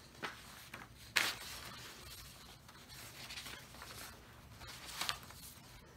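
Faint rustling and rubbing of a paper card being handled and slid on a tabletop, with a few short scrapes, the sharpest about a second in.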